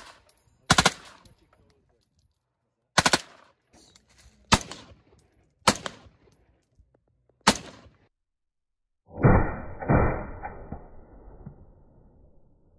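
Rifle shots on an outdoor range: about five sharp single shots, one to two seconds apart, each with a short echo. About nine seconds in comes a louder, duller boom that dies away over roughly three seconds.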